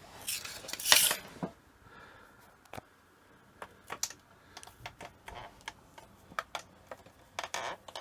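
Irregular clicks and short scrapes of metal parts on an old milling machine being handled and moved, a louder cluster of scrapes about a second in.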